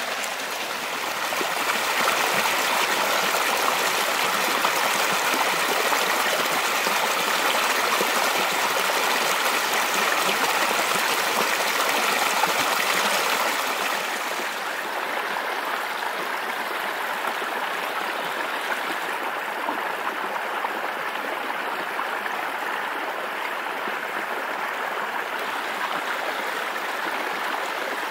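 A small, partly iced-over woodland stream runs and splashes over rocks as a steady wash of water noise. It is louder and brighter for the first half, then softer and duller from about halfway on.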